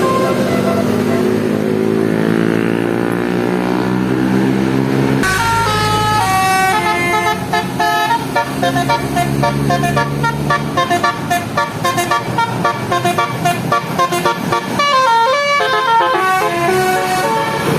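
Basuri-type multi-tone 'telolet' bus horn. It first sounds a held chord that slides slowly down in pitch, then from about five seconds in plays a quick tune of short, stepped notes for about ten seconds.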